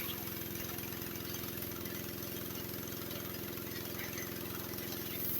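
Gas pressure washer's horizontal-shaft Honda engine running steadily, with an even, fast firing pulse.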